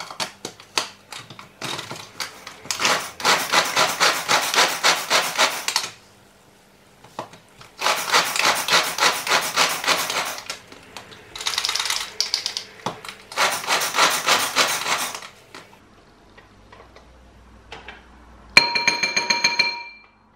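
Manual food chopper chopping chillies, worked in several runs of rapid, rhythmic ratcheting strokes a few seconds long with pauses between. Near the end comes a ringing tone lasting about a second and a half.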